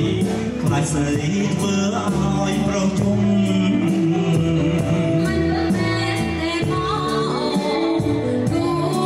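Live Khmer pop band playing a song: electric guitar, bass, keyboards and a drum kit keeping a steady beat, with a male singer and, near the end, a female singer taking up the vocal.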